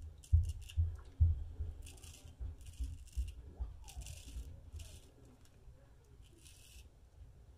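Full-hollow straight razor scraping through lathered stubble in a series of short, raspy strokes. Dull low thumps and bumps sound under the strokes through the first few seconds.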